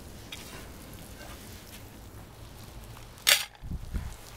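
Faint steady background, broken about three seconds in by a single short, sharp noise, followed by two or three low thumps.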